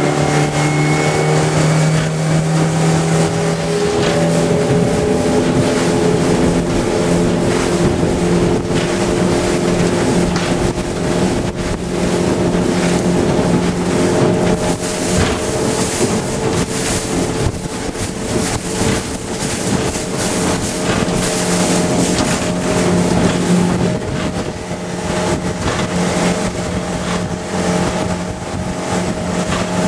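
Suzuki 70 hp outboard motor opened up to full throttle. Its pitch climbs right at the start, then holds a steady high note as the boat runs at speed. The wake rushes behind and wind buffets the microphone.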